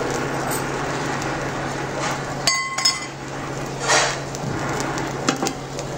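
Dosa batter cooking on a hot black tawa over a gas burner, a steady hiss under a low hum. A metal utensil gives a ringing clink about two and a half seconds in.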